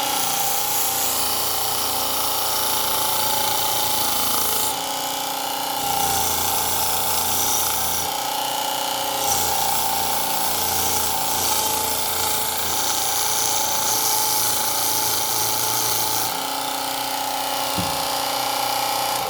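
Mini belt sander running with a steady motor whine while a rubber cleaning block is pressed against the moving sanding belt, scrubbing out bone dust clogged in the sandpaper. The hiss of the belt shifts several times as the block's contact changes.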